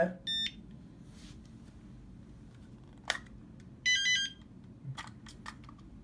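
Rosslare HLX24 wireless alarm control panel: a short keypad beep as a key is pressed, a sharp click about three seconds in, then a quick run of beeps about four seconds in as the panel receives the PIR detector's tamper signal during enrollment, followed by a few light clicks.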